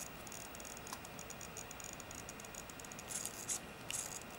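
Faint, rapid ticking and light rattling from the SqueezeBlock, a hand-squeezed electro-mechanical haptic device that acts as a software-controlled virtual spring, as its pressure plates are worked. There are a few brief scraping bursts about three to four seconds in, as the plates are squeezed again.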